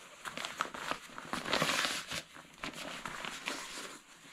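Nylon shell of a Savage Gear waterproof jacket rustling and crinkling as its hem drawstring is handled, with small clicks throughout and a louder swish of fabric about one and a half seconds in.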